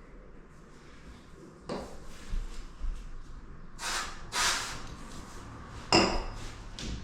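Hand tools and fittings being handled during carpentry work: a knock, a couple of short scraping sounds, then a sharp metallic clink with a brief ring about six seconds in.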